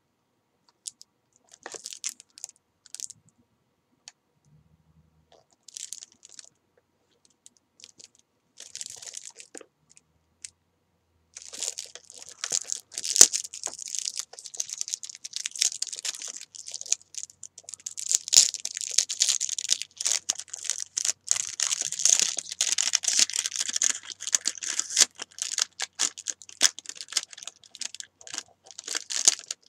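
Cellophane wrap being torn and peeled off a small cardboard box by hand. There are a few scattered crackles at first, then continuous dense crinkling and crackling from a little over a third of the way in.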